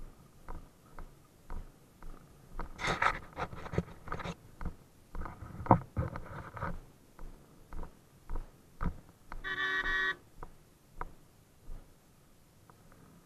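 Light ticks and knocks about two a second, with a denser run of knocks and scrapes in the middle, then a single motorcycle horn toot lasting about a second, near the end.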